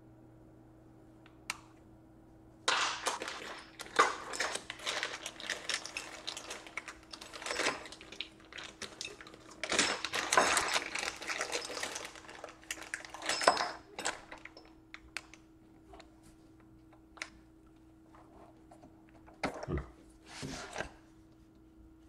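Small clear plastic parts bag crinkling and rustling in the hands, with many small clicks, for about ten seconds. Near the end, a few knocks as a laptop is handled on a tabletop.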